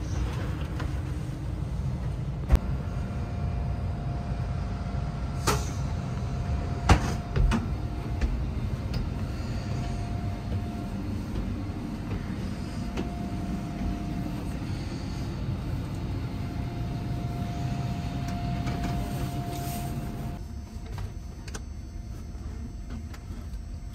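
Steady low hum inside a TGV Duplex double-deck train car, with a faint steady tone through most of it and a few sharp knocks in the first eight seconds. The hum drops noticeably about twenty seconds in.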